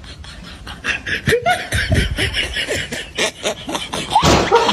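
Human laughter in quick, repeated bursts, growing louder about a second in and peaking near the end.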